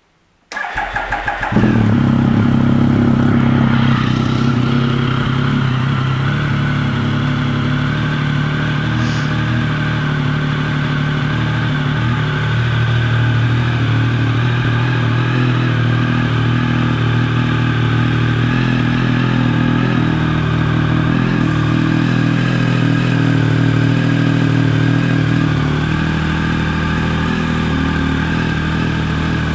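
A 2011 Triumph Speed Triple 1050's inline three-cylinder engine, breathing through an aftermarket Danmoto exhaust, cranks on the electric starter for about a second, catches, and then settles into a steady idle.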